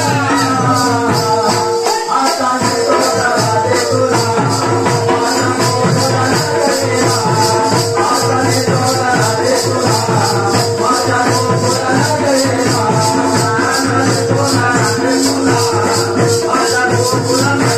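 A man singing live through a microphone, accompanied by a hand drum and fast high percussion keeping a steady beat, over a held drone.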